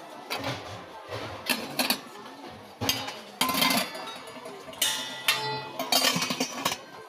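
Stainless steel kitchenware clinking and knocking as it is handled: a string of short clinks with a light metallic ring, over background music.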